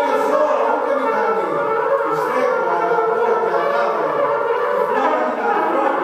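Trumpet playing a slow line of long held notes.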